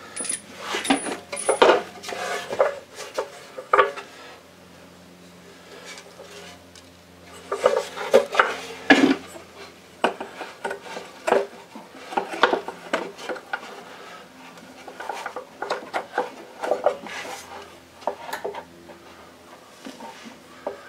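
Irregular clinks, clatters and knocks of metal parts and tools being handled on a workbench during reassembly of a Stihl TS400 cutoff saw. There is a lull of a few seconds about four seconds in, and a faint steady hum underneath.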